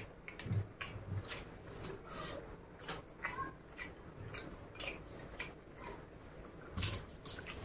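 Close-miked eating sounds: scattered crisp clicks and wet smacks from chewing and from fingers breaking up fried salted fish and raw leaves, with a few soft low thumps.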